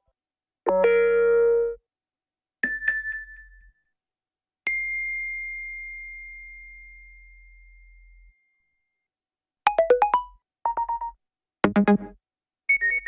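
A run of iPhone X alert tones played one after another with short silences between them. First a held chord-like tone lasting about a second, then a short plucked tone, then a single high ding that fades away over about three seconds, and from about two-thirds of the way in, groups of quick beeps.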